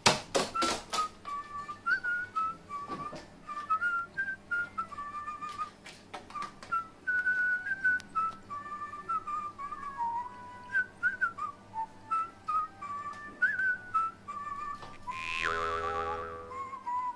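Background music: a whistled tune of short stepping notes. A rapid run of sharp clicks comes in the first second, and a loud sound falling in pitch lasts about a second near the end.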